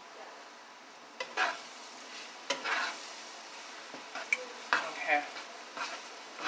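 Butter melting and sizzling with flour in a frying pan to make a roux, stirred with a utensil that scrapes the pan in short strokes about once a second over a faint, steady sizzle.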